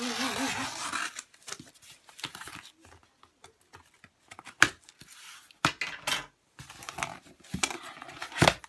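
Scissors cutting into a posted parcel's packaging, then paper rustling and tearing with scattered sharp clicks and knocks as it is opened, the loudest knock a little past halfway.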